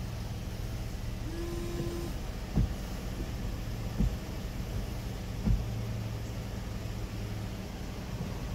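Ford Flex windshield wipers sweeping the wet windshield, the freshly trimmed blades being tested, with a thump about every second and a half as the wiper reverses at the end of a stroke. Over the steady low hum of the idling engine heard inside the cabin, a short whine about a second in is the washer pump spraying fluid.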